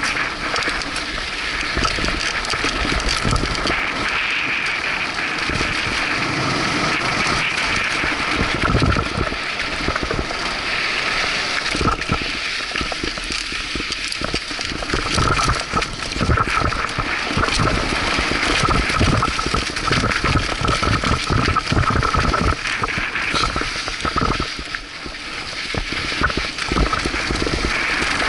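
Mountain bike running fast down a dry dirt trail: tyres crunching on loose dirt, with the bike's chain and frame rattling and knocking over bumps, under a steady rush of wind noise on the helmet-mounted camera.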